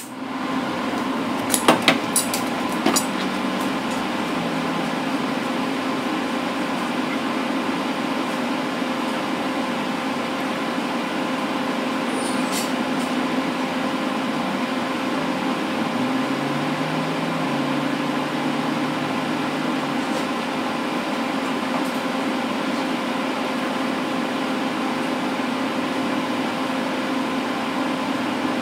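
Steady electric fan hum in a metal shop, with a few sharp metallic clicks in the first three seconds. A low tone rises and holds for a few seconds about halfway through.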